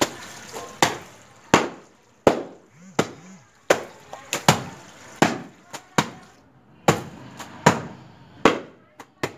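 A wet towel being beaten on a concrete washing slab, the traditional hand way of washing clothes: a steady run of sharp wet slaps, roughly one every two-thirds of a second.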